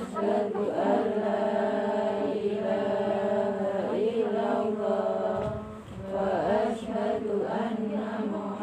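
A yasinan congregation chanting an Islamic recitation together in unison, with long drawn-out notes and short breaks between phrases.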